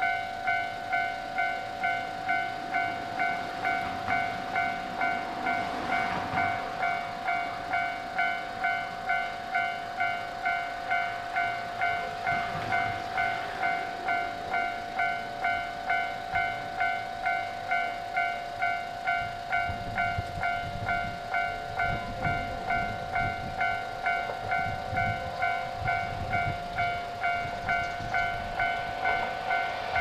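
Japanese level-crossing warning bell ringing: a rapid, evenly repeating electronic ding, sounding while the crossing's red warning lamps flash. A low rumble joins in about two-thirds of the way through.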